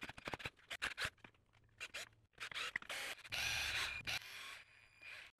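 Cordless drill driving a #8 machine screw into a hole in a plywood insert: a string of light clicks and small knocks, then the drill motor runs for about a second, three seconds in.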